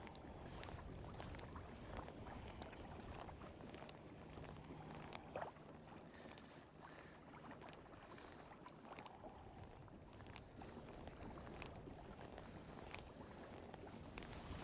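Faint wind rumble on the microphone with light water sounds and scattered small clicks and knocks from a fishing kayak on open water, one knock a little louder about five seconds in.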